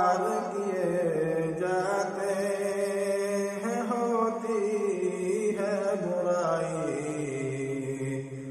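A man's solo unaccompanied chanted recitation, sung in long held notes with sliding, ornamented pitch.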